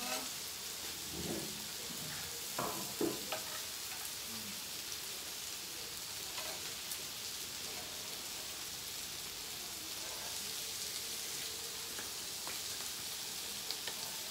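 Meat sizzling on a tabletop grill pan, a steady frying hiss, with a few sharp clicks in the first three seconds.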